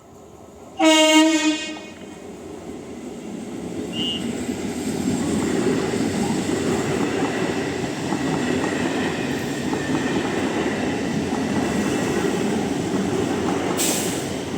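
Indian Railways electric train sounding one short horn blast of under a second, then running past, its rumble and wheel noise building over a few seconds and holding steady.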